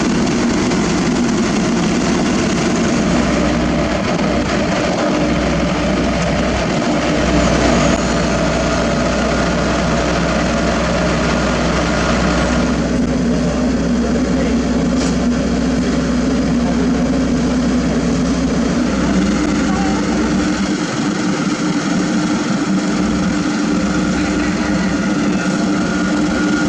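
Heavy diesel paving machinery running steadily, with a continuous engine hum under a broad mechanical noise. About halfway through, the higher hiss eases off.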